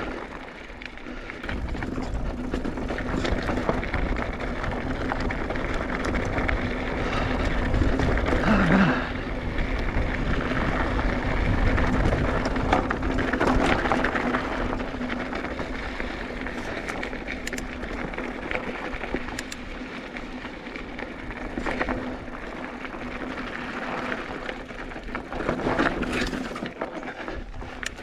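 Mountain bike rolling downhill over a rocky, gravelly trail: tyres crunching over stones and the bike rattling, with occasional knocks as it drops over rocks.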